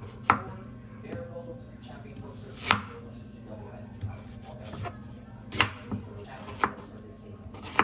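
Knife chopping on a cutting board: about six sharp, separate chops at uneven intervals, two of them close together a little past the middle.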